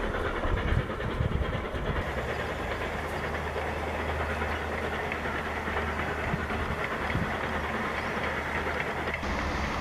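Passenger train running past at a distance: a steady rumble of wheels and running gear with a low hum underneath.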